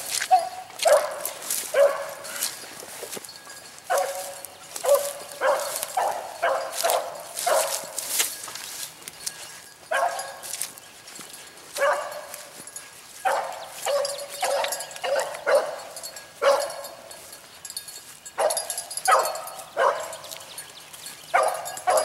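A single rabbit hound baying over and over, short calls coming in uneven clusters with brief pauses: the hound giving tongue as it runs a rabbit's scent trail.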